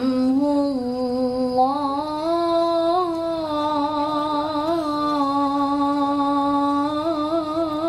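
A teenage boy reciting the Quran in the melodic tilawah style, drawing out one long note with small wavering ornaments and a quick trill near the end.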